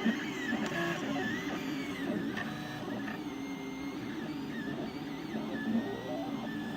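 3D printer extruder stepper motor whining in short rising and falling tones as its bottom drive wheel turns against the filament. The wheel is grinding the filament instead of feeding it through.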